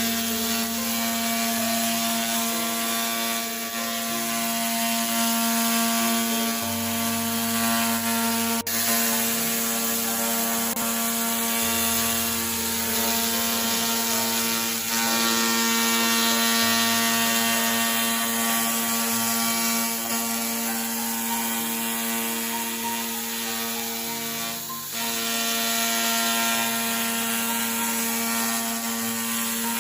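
Handheld fiber laser cleaning head working in cleaning mode: a steady mechanical buzz of fixed tones with a shifting lower rumble, broken by a sharp click about nine seconds in.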